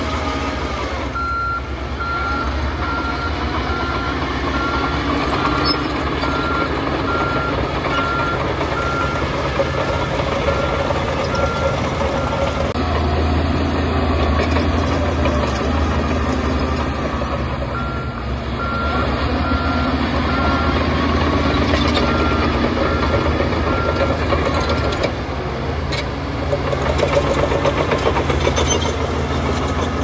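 A heavy machine's reversing alarm beeps at an even rate, in two spells broken by a pause near the middle, over the steady running of the diesel engines of a bulldozer and dump trucks.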